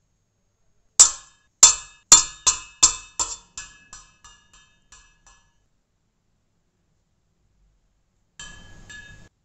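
A metal spoon knocked about a dozen times against a stainless steel pot, each clink ringing briefly and growing softer over about four seconds, as rolled oats are tapped off the spoon into the pot. Near the end come softer clinks and a light rustle as ground cinnamon is tipped in from a spoon.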